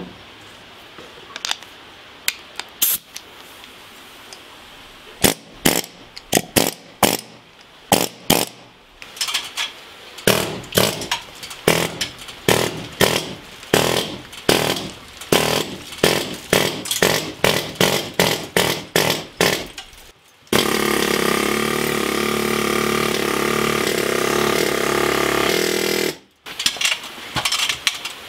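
A run of sharp knocks, about two a second, against a concrete block wall, then a pneumatic air hammer (air chisel) running steadily for about five seconds before it stops suddenly.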